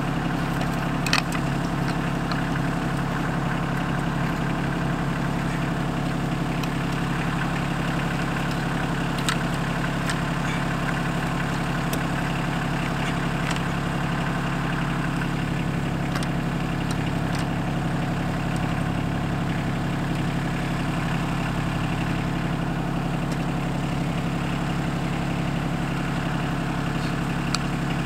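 John Deere 2025R compact tractor's three-cylinder diesel idling steadily. Now and then a sharp click sounds over it, the loudest about a second in, from a shovel and bar working the soil.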